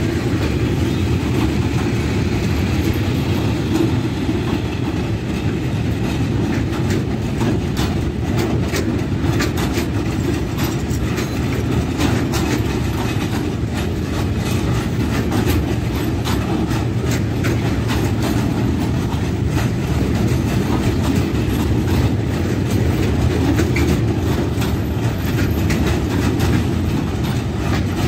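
A long train passing steadily, its wheels clattering over the rail joints.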